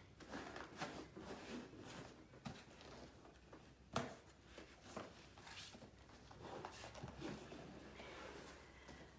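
Cardboard packaging being handled: faint scraping and rubbing of cardboard as an inner box is worked out of its outer carton, with one sharp tap about four seconds in.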